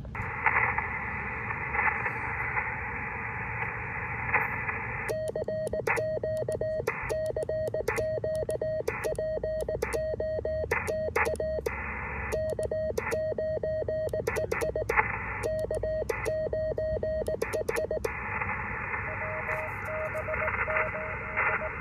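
Shortwave receiver hiss from an SGC SG-2020 transceiver. About five seconds in, the hiss cuts out and the rig's CW sidetone sounds a steady tone keyed on and off in Morse code as the operator sends on a Vibroplex Brass Racer paddle, with sharp clicks along with the keying. The sending stops about eighteen seconds in, the receiver hiss returns, and a faint Morse reply comes through near the end.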